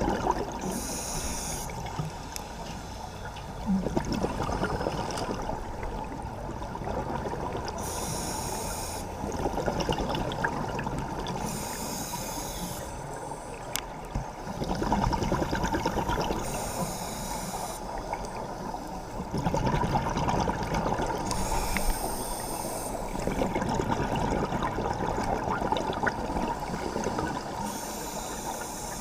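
Scuba diver breathing through a regulator underwater. Short hissing inhales come every four to five seconds, each followed by a longer burst of bubbling, gurgling exhaust.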